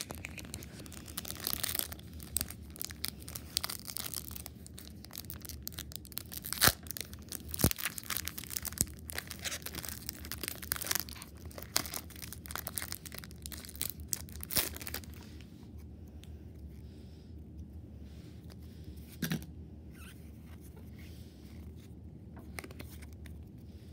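Foil wrapper of a Pokémon trading-card booster pack crinkling and being torn open, with sharp crackling and tearing for about fifteen seconds. Then quieter, with light rustles as the cards are handled out of the pack.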